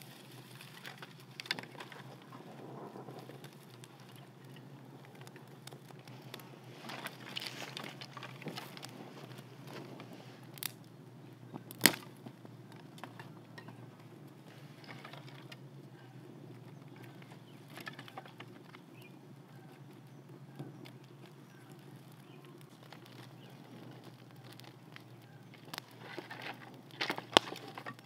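Dry sticks and twigs rustling and clattering as they are laid by hand on a small campfire, with scattered sharp snaps, the loudest about halfway through and another near the end.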